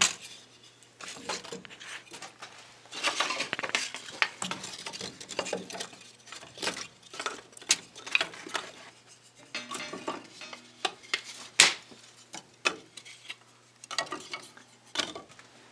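Dry pine wood lath and kindling sticks clattering and knocking as they are laid by hand into a wood furnace's firebox, in irregular wooden knocks with one sharper knock about three-quarters of the way through.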